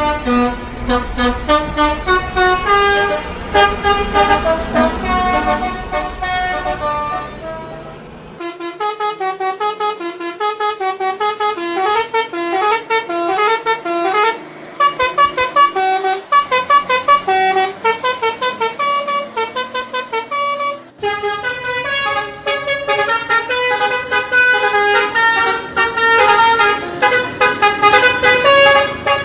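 Bus telolet horn, a Basuri multi-tone musical air horn, playing a fast melody of short stepped notes over and over. The tune breaks off and restarts abruptly about 8 seconds in and again about 21 seconds in; under the first part a low engine rumble is also heard.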